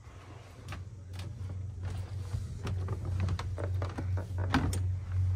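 Footsteps, knocks and clunks of someone making their way out of a motor cruiser's cabin onto its deck, over a steady low hum. The knocks grow louder and more frequent from about half a second in.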